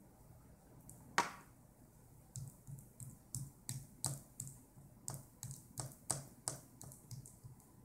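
A toddler licking pumpkin pie off a large spoon: a run of short wet lip smacks and mouth clicks, about three a second, after a single louder sound about a second in.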